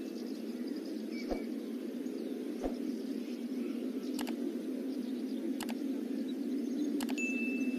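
Steady low noise bed with a sharp click about every second and a half. About seven seconds in, a click is followed by a held high ding, the click-and-chime effect of an animated subscribe button.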